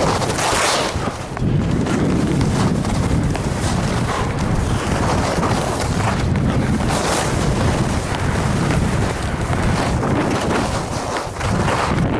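Wind rushing and buffeting on an action camera's microphone during a fast ski descent, mixed with the hiss of skis running over packed snow. The rush swells and eases every few seconds with the turns.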